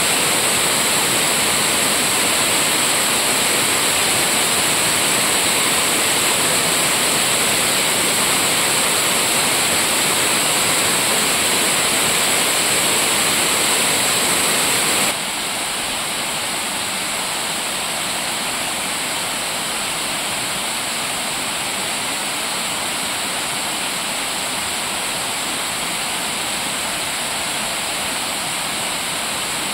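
Steady rush of water falling at a river waterfall. The sound drops suddenly to a lower, softer level about halfway through.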